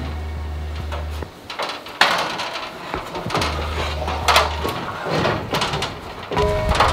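Aluminium ladder knocking and clattering as it is handled and climbed: a run of sharp metallic knocks, over a low hum that comes and goes.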